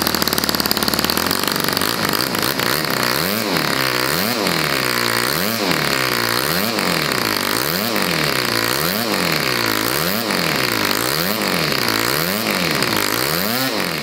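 Homemade single-cylinder four-stroke model engine with a rotary-valve cylinder head, running. Its speed rises and falls about once a second from roughly three seconds in.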